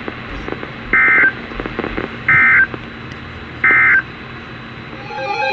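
EAS SAME end-of-message data bursts from NOAA Weather Radio: three short, identical digital screeches about a second and a third apart, signalling the end of the alert. A steady radio hiss with a low hum runs underneath.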